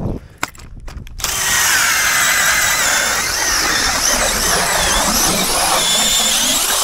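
Power drill driving an ice auger, boring a hole through lake ice. After a few light clicks, a steady motor whine with the grind of the blades cutting ice starts about a second in and holds.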